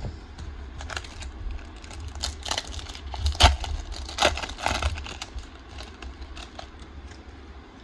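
Foil booster-pack wrapper crinkling and rustling as it is handled, with cards shuffled, in a run of quick crackles that is busiest in the middle and tails off toward the end.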